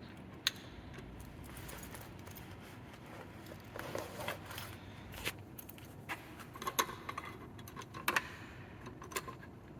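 Keys jangling and a scattered series of sharp clicks and short rattles from hands working a manual fire alarm pull station and its reset key.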